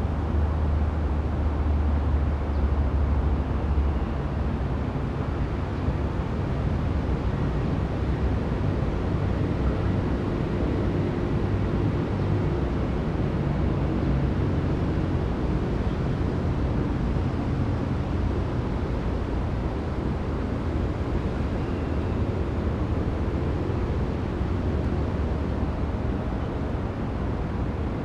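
Steady low rumble of outdoor background noise, heaviest in the bass for the first few seconds, with no distinct ball strikes standing out.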